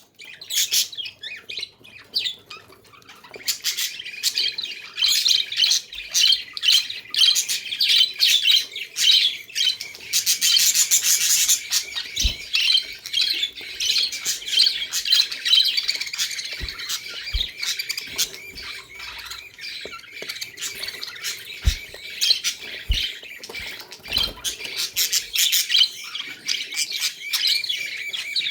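A flock of budgies chirping and chattering without pause, many short calls overlapping, a little quieter for the first few seconds. A few soft low thumps come in the second half.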